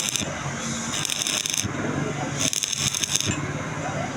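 Electric arc welding on a pipe: the arc crackles and sizzles in spells of about a second, breaking off and starting again, as when a weld is laid down in short stitches.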